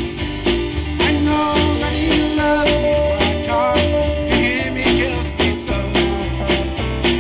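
Live gospel band playing a country-style song without vocals: acoustic guitar with bass and drums keeping a steady beat, and a melody line over them.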